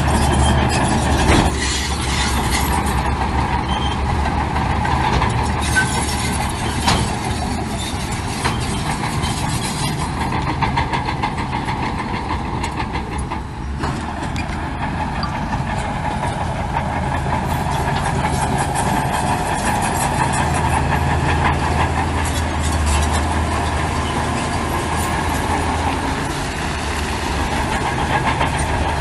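Heavy diesel earthmoving machinery running steadily, with a few sharp clanks.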